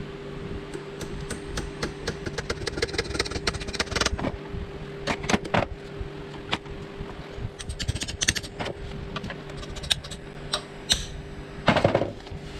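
Small metal hand tools clicking and tapping against the metal housing and end plate of a 1200 W 12 V Maxwell anchor winch motor, in irregular clusters of light taps, with one louder knock near the end.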